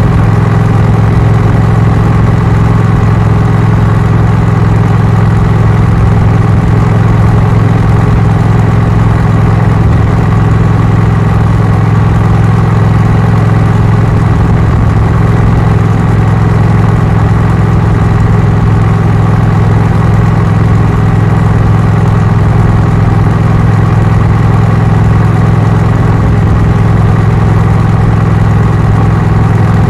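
Honda CMX1100 Rebel DCT's parallel-twin engine and exhaust at a steady highway cruise, holding an even, unchanging pitch.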